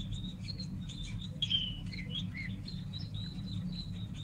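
Canary chirping and trilling in short, quick notes, with one louder note sliding down in pitch about a second and a half in. It is a synthetic canary, generated from video frames by a visually guided sound generation model (SpecVQGAN), with a steady low hum underneath.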